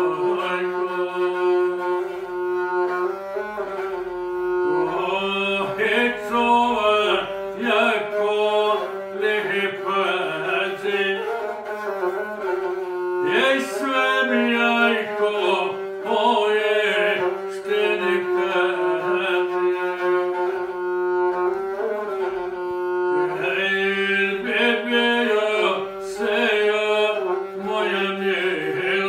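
Gusle, the single-string bowed Balkan folk instrument, bowed continuously while a man sings an epic song over it, guslar style. The bowed line stays close to one pitch, with a wavering voice moving around it.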